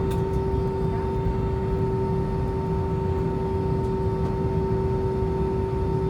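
Airbus A320 cabin noise on the ground after landing: a steady low rumble with a constant two-note whine, the IAE V2527E-A5 engines running at idle.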